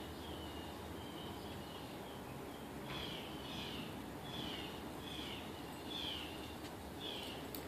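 A bird calling: a steady series of short notes, each sliding down in pitch, about one every three-quarters of a second, louder from about three seconds in.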